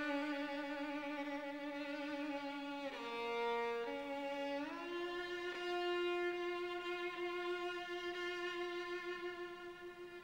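Background music: a slow melody on a bowed string instrument, long held notes with vibrato, changing pitch a few times.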